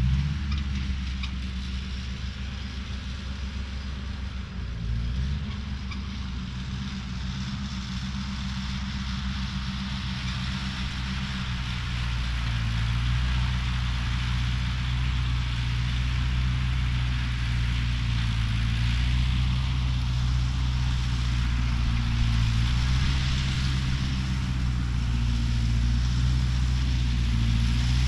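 Ford 8N tractor's four-cylinder flathead engine running steadily, its note shifting a couple of times and growing a little louder after about twelve seconds.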